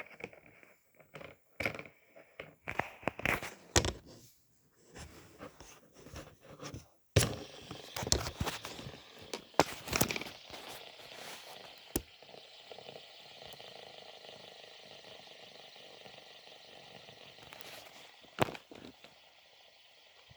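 Plastic fidget toy handled for ASMR: a run of irregular clicks and taps, then a steady whirring hiss for several seconds, with one more sharp click near the end.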